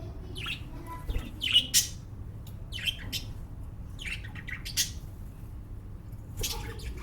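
Lovebirds giving short, shrill chirps and squawks, singly or in quick pairs, scattered every second or so.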